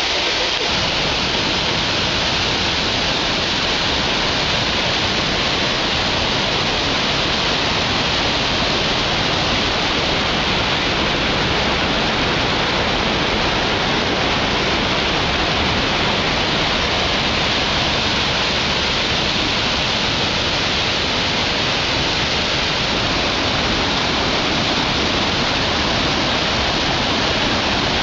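Rainbow Falls, a waterfall, rushing with a loud, steady roar of falling water.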